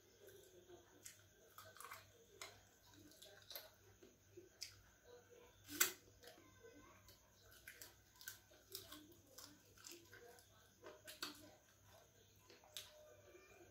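Faint eating sounds of a person eating chicken by hand: chewing with many small scattered mouth clicks and smacks, the sharpest about six seconds in.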